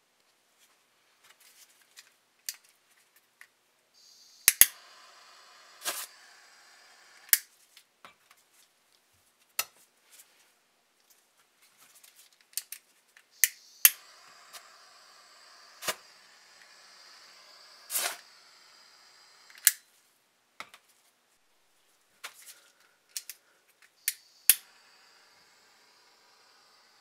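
Small crystals going off one at a time in sharp cracks, about a dozen of them, while a handheld gas torch hisses as it heats them. The hiss starts about four seconds in, stops for a few seconds past the middle and starts again near the end.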